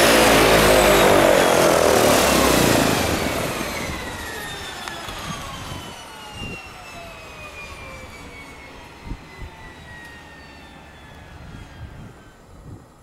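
An airplane passing close by and moving away. Its engines are loud for the first few seconds, then fade, with several tones sliding down in pitch as it recedes.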